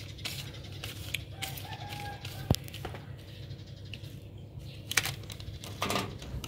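Packaging machine humming steadily, with scattered clicks and crinkles of foil coffee sachets being handled. A brief faint pitched call sounds about one and a half seconds in, and a sharper click comes a second later.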